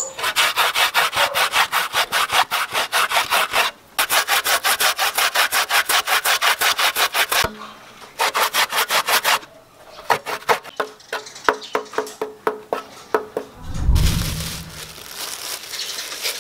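Roasted coconut flesh rasped on a metal box grater in quick, even strokes, about five a second, in several runs with short pauses. The strokes slow and thin out later on, and a dull thump comes about two seconds before the end.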